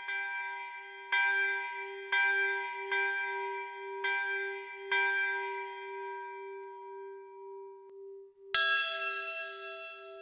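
Forging hammer striking hot steel on an anvil, each blow leaving a long, bell-like ring: five strikes about a second apart, then a pause and one more.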